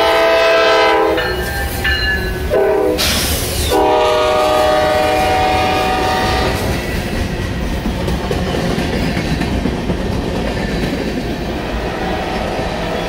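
Nathan K5LA horn on a GE C40-9W (Dash 9) freight locomotive: a long blast that drops in pitch about a second in as the locomotive passes, a short blast, then another long blast, the end of the long-long-short-long grade-crossing signal. After that the freight cars roll by with a steady rumble and clatter of wheels on rail.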